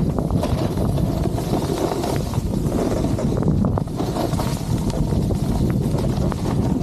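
Steady rush of wind buffeting the camera's microphone as a snowboard slides downhill over fresh snow, with the hiss of the board's base and edges on the snow underneath.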